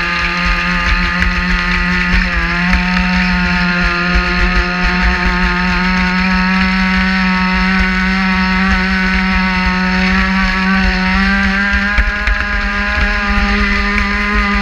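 Traxxas Spartan RC boat's electric motor running at speed on a 6S battery: a steady high whine with a low rush of water and wind under it. The pitch sags briefly about two seconds in, then holds.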